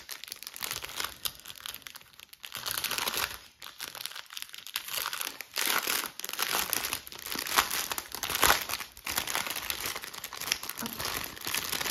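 Small plastic bags of diamond-painting drills crinkling as they are handled and sorted, in uneven spurts of rustling.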